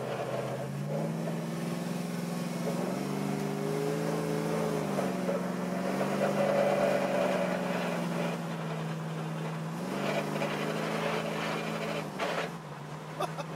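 Worked 351 V8 of a 1967 Mercury Cougar, heard from inside the cabin while accelerating away from a standstill. Its pitch climbs as the car pulls away and drops back with each upshift, about 5, 10 and 12 seconds in, then it settles into a steady cruise.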